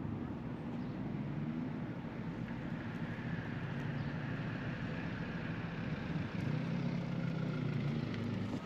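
Road traffic: vehicles driving past, a steady engine hum with tyre noise that swells around the middle.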